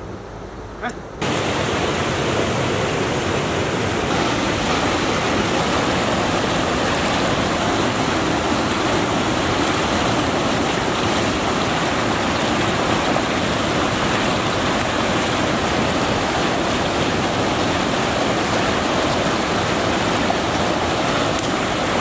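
Rushing river water: a steady, loud rush that sets in about a second in and holds evenly throughout.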